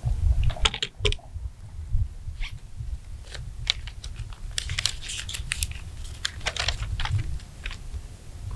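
Low, uneven rumble of wind buffeting the microphone, strongest in the first second, with a scatter of light, sharp clicks and taps that come thickest in the middle of the stretch.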